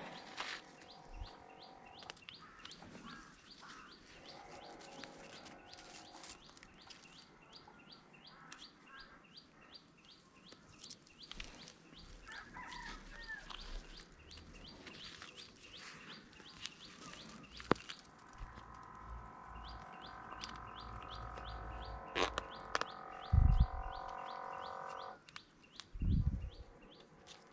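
Rapid, evenly repeated high chirps, several a second, with a short break about two-thirds of the way in. A steady hum with a low rumble underneath runs through the latter part, and two loud dull thumps come near the end.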